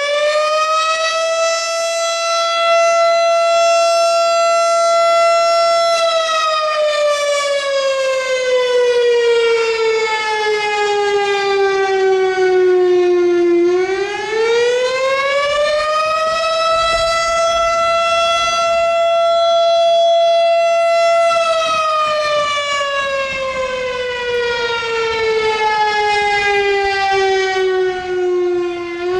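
Fire siren wailing like an air raid siren. It climbs to a high note and holds it for several seconds, then slides slowly down. About halfway through it winds back up, holds, and falls again near the end.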